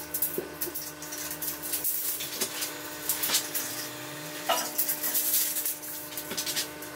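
Irregular light clattering and scraping, like hard objects being handled and set down, over a steady faint hum.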